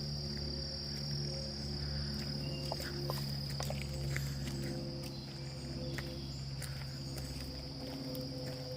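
Insect chorus: a steady, unbroken high-pitched trill of crickets.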